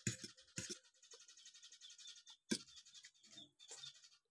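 A metal fork scraping and clicking against a ceramic plate as spaghetti is twirled, with a few sharp clicks near the start, one midway and one near the end.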